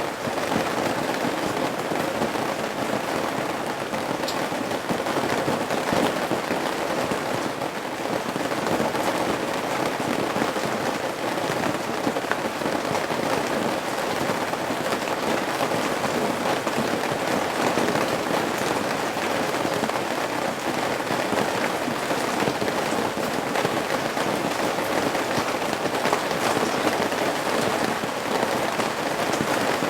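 Steady rain falling at a roof's eaves: a dense, even patter of many drops hitting the surface.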